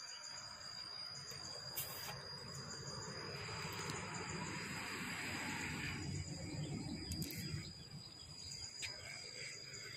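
Insects droning in one steady, high-pitched tone over a low, fluctuating rumble.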